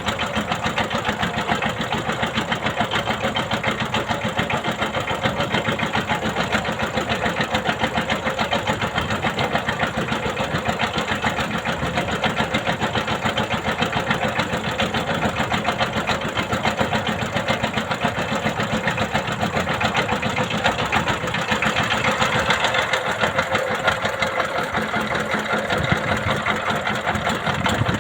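Small boat's engine running steadily with a fast, even chugging.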